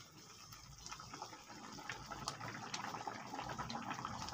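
Thick shrimp balado sauce simmering in a wok, bubbling with a steady patter of small pops that grows louder. The sauce is reducing as its water cooks off.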